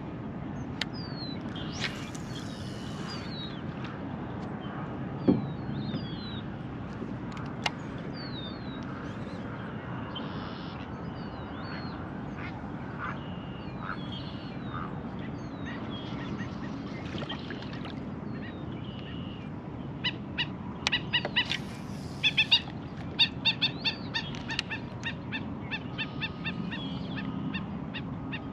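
Birds calling: short, high, falling chirps throughout, joined in the last third by faster chattering runs of quick repeated notes, over a steady low background hiss.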